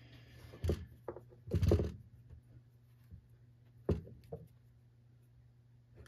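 A handful of short clicks and rustles as hands work a nylon starter rope through a plastic pull-cord handle and knot it. The loudest is a brief scrape about a second and a half in, with a sharp click near four seconds.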